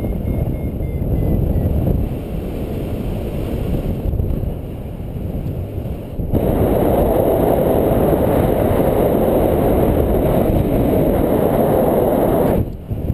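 Wind rushing over a GoPro camera's microphone during paragliding flight, a steady low noise. It gets louder about six seconds in and dips briefly near the end.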